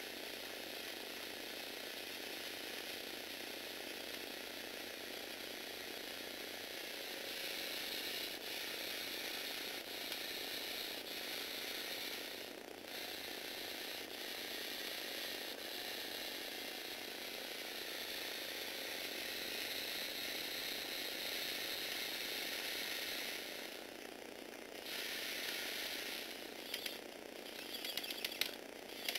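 Electric motors driving the plastic gear trains of a motorized Lego Technic 8258 model: a steady mechanical whirring with gear chatter that gets louder about seven seconds in and briefly drops away twice, with a few sharp clicks near the end.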